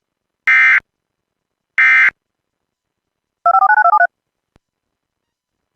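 Emergency Alert System end-of-message code: the last two of three short, identical screeching bursts of SAME digital data, marking the end of the alert. About three and a half seconds in, a brief electronic warble flips rapidly between a low and a high pitch, followed by a faint click.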